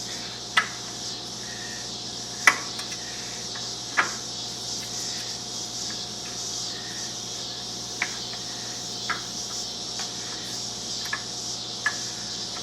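Sharp, isolated metallic clinks of hand tools working on motorcycle exhaust flange nuts, about seven of them with the loudest early on, over a steady high chirring of insects.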